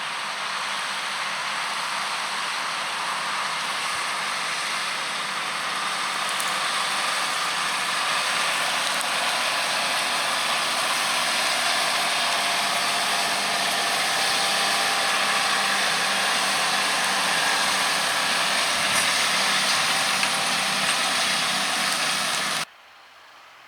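John Deere 6195R tractor working under load as it pulls a five-furrow reversible plough and furrow press: a steady engine drone under a broad hiss. It grows slowly louder as it comes closer, then cuts off abruptly about a second before the end.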